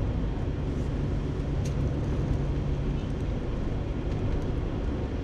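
Steady engine and tyre noise of a car driving at around 45 km/h, heard from inside the cabin, with a steady low drone.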